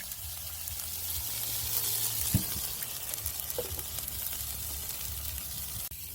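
Teriyaki sauce and food sizzling steadily on a hot Blackstone flat-top griddle as the sauce is stirred in.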